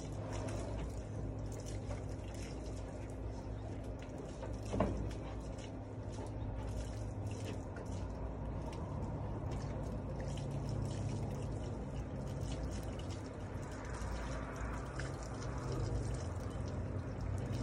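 Water from a garden hose running and splashing on wet concrete during a dog bath, with a brief cry about five seconds in.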